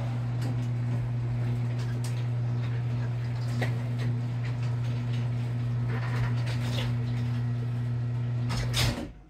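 LiftMaster garage door opener motor running as the sectional garage door closes: a steady hum with occasional clicks from the door moving down its track. About nine seconds in there is a short loud knock as the door reaches the floor, and the motor stops.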